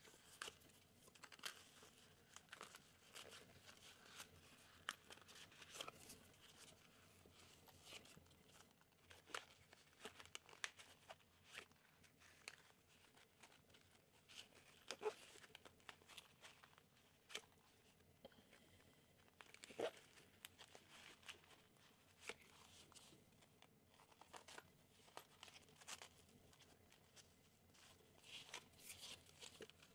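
Faint handling of a Cordura nylon ID card holder: the fabric rustles and crinkles, with scattered light clicks and ticks as plastic cards are slid in and out of its pockets.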